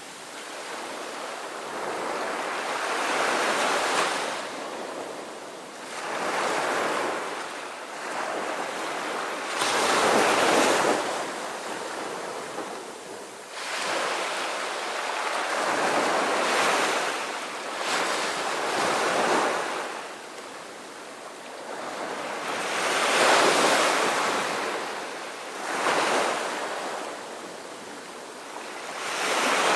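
Sea waves washing in: a rushing hiss that swells and falls away every few seconds.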